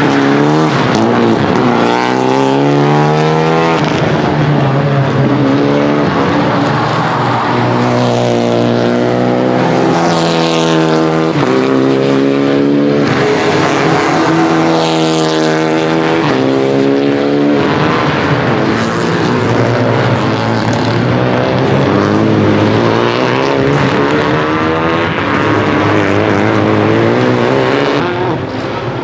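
Rally car engine running hard on a circuit stage. The revs climb repeatedly and drop back at each gear change or lift, over and over.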